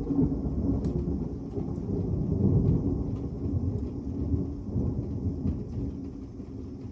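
Thunder rumbling long and low over rain, swelling about two and a half seconds in and then slowly fading, with a few light drop clicks.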